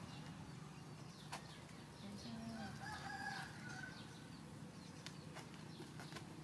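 A rooster crowing once, faintly, about two seconds in and lasting about a second and a half, with a few light clicks around it.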